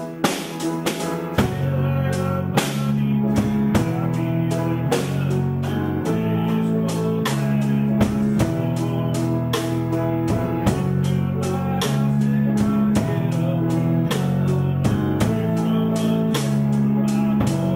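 A band playing live in a room: guitar chords ringing on under a drum kit keeping a steady beat.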